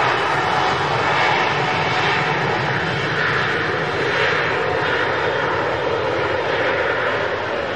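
Boeing 747-8's four GEnx turbofan engines at high power on the takeoff roll: a loud, steady jet roar.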